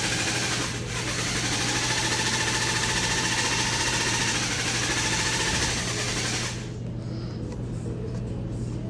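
A small motor running steadily with a slightly wavering pitch; about two-thirds of the way through it turns duller as its high end falls away.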